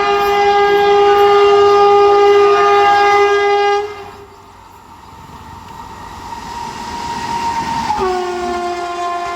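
Diesel or electric locomotive horn of a high-speed express train: one long blast of about four seconds, then the train running past, then a second, slightly lower-pitched blast near the end.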